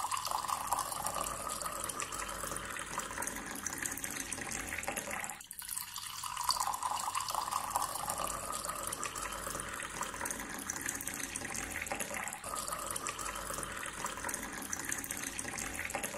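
Thin stream of water from a small pump's tube pouring into a shallow tank of water, a steady splashing trickle. It breaks off briefly twice and picks up again.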